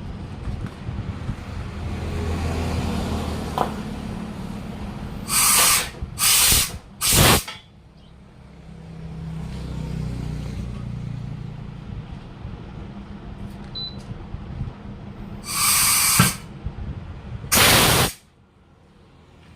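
Compressed air hissing in five short bursts, three close together and then two more near the end, over a steady low engine hum.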